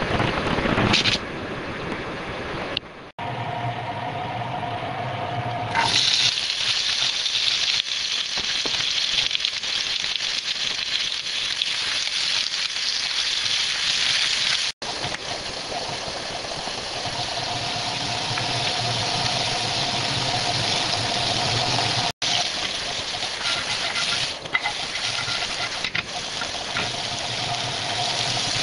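Potato sticks frying in oil in a pan: a steady sizzle from about six seconds in, with a steady low hum beneath it.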